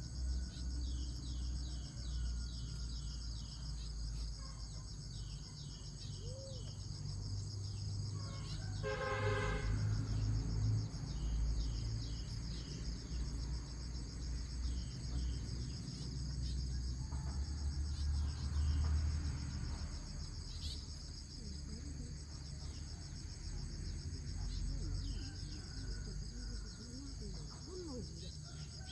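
Crickets and other insects chirping and shrilling steadily, with a low rumble underneath. About nine seconds in comes a single brief pitched honk.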